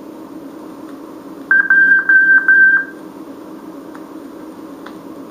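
Morse code practice tone from a 1959 vinyl code-course record, played through a toy record player. One high, steady beep keyed as a short element and three long ones (dit-dah-dah-dah), the letter J, sounding for about a second and a half in the middle.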